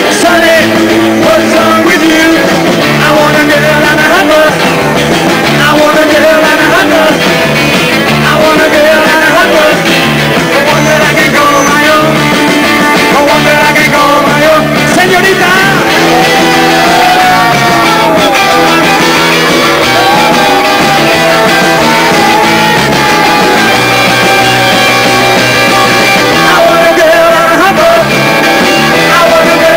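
Live rock and roll band playing loud: electric guitars, bass and drums driving a steady beat, with singing.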